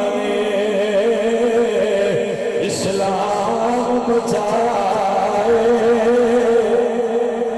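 A man's voice chanting a slow melody through a microphone, holding long notes that waver up and down.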